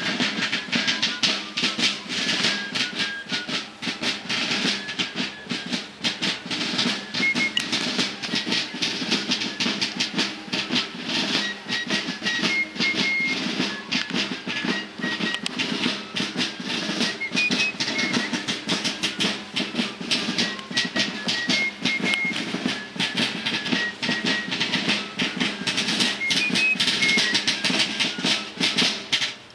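Fife and snare drum playing a military march: a high fife melody over rapid, continuous snare drum strokes.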